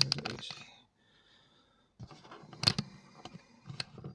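Small brass pin-tumbler pins being tapped out of a padlock core, giving a series of light metallic clicks from about two seconds in. One click a little later is the loudest.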